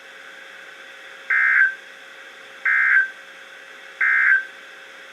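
Emergency Alert System end-of-message data burst, sent three times as short, harsh two-tone digital squawks about a second and a half apart, from a NOAA Weather Radio receiver: the signal that closes the broadcast alert. Between the bursts there is faint radio hiss with a steady low hum.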